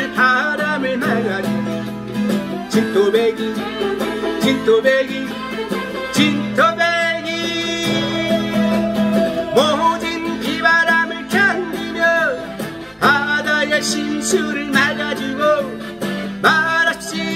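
A man singing a Korean trot song live, accompanying himself by strumming a Crafter steel-string acoustic guitar.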